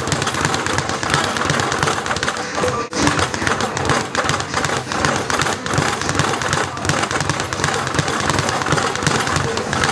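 Speed bag being punched in a fast, continuous rattling rhythm as it rebounds off its platform, with a brief break just before three seconds in.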